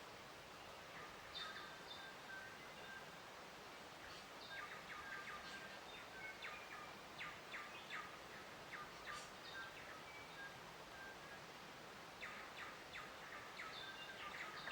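Small birds chirping in quick runs of short calls, with a lull a little after the middle, over a faint steady background hiss.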